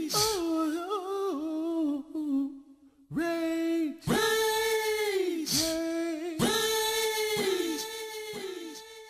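Music: a sung vocal line with little backing, held notes that slide down in pitch at their ends. Near the end it breaks into short repeated notes that fade away.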